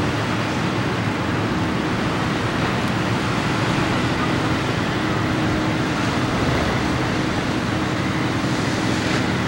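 Steady rushing noise of surf and wind at the shore, even and unbroken.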